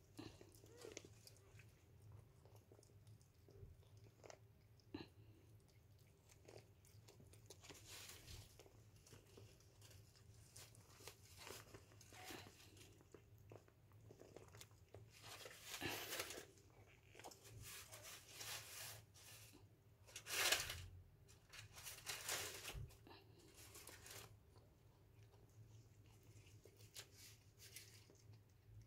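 Mother cat chewing on a newborn kitten: faint wet crunching and tearing in short bouts, the loudest about two-thirds of the way through.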